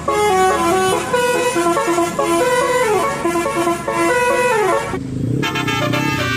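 Telolet Basuri multi-tone bus horn playing a tune in quick stepped notes. A little before five seconds it stops and a different, lower sound takes over.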